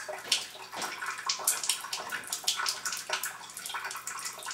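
Water running from a countertop water ionizer's outlets and splashing unevenly into a kitchen sink.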